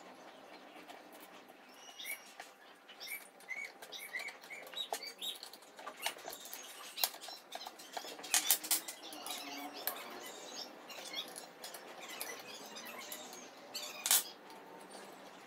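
Scattered clicks, taps and clinks of small metal bolts, Allen keys and stand parts being picked up, set down and fitted on a wooden tabletop, loudest about eight and a half seconds in, with a sharp clack near the end. A few short high chirps sound about two to five seconds in.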